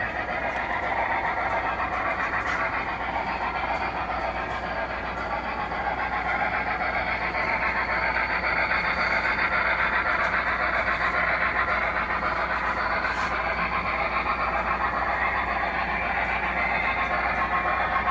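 Model train running along the layout track: a steady rolling whir of motor and wheels, with a few faint clicks over the rails.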